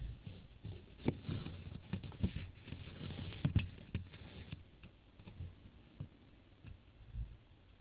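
A cluster of irregular soft taps and knocks over a faint hiss, thinning out after about four and a half seconds.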